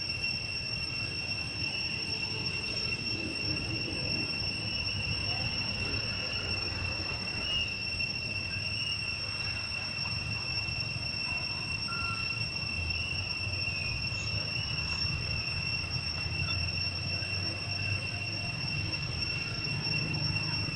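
A steady, unbroken high-pitched insect drone, with a low rumble underneath.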